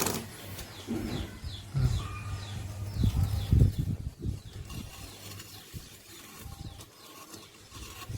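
Small pet birds chirping in short, quick calls, mixed with a few low knocks and handling bumps in the first half.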